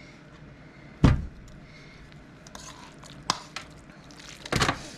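Thick, wet pot-pie filling being spooned from a bowl into an aluminium foil pan: a heavy thump about a second in, a light clack a couple of seconds later, and a wet scraping squish near the end.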